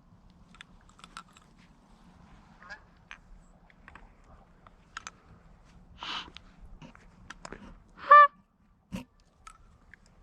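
A single loud, short goose honk about eight seconds in, after faint scattered clicks and a brief rustle, with a short knock about a second after the honk.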